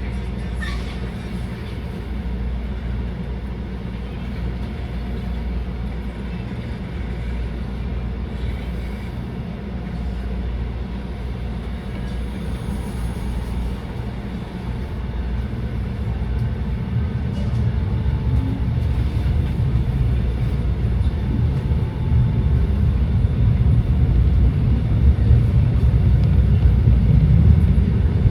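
SEPTA Route 34 trolley running on its rails, a steady low rumble that grows louder over the second half.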